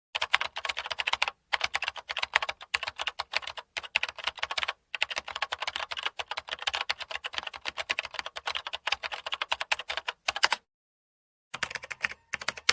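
Fast typing on a computer keyboard: a dense run of key clicks with a few brief pauses. It stops about ten and a half seconds in, then a short burst of typing follows near the end.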